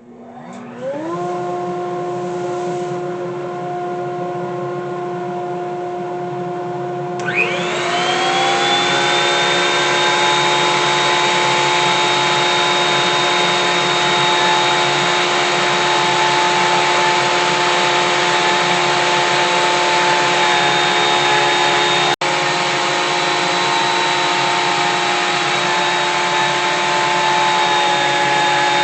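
Two electric motors start one after the other: one spins up about half a second in, and a second, louder one rises to speed with a whine about seven seconds in. Both then run steadily with no load. One of them is the Jet JWP-13TB benchtop planer's 2-horsepower motor driving its helical cutterhead.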